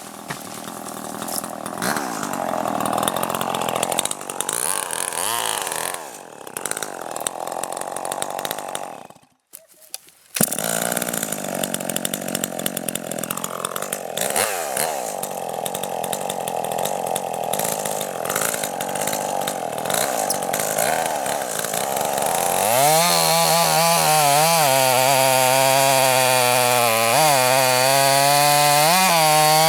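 Two-stroke chainsaw running and cutting into logs, its engine pitch rising and falling with the throttle and load. Partway through the sound drops out almost completely for about a second. Near the end the saw runs louder and steadier at full throttle, its note wavering as the chain bites into the wood.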